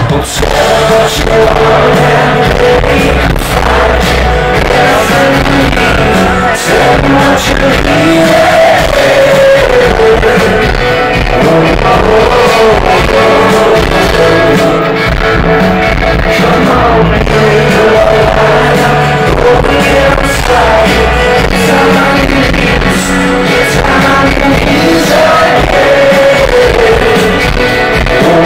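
Live rock band playing loud through a concert PA, heard from within the crowd: electric guitars and drums with a sung vocal melody.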